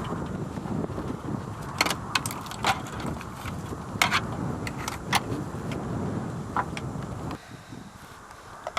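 Wind buffeting the microphone in uneven gusts, with a scatter of sharp metallic clicks and knocks from handling; the wind noise drops away near the end.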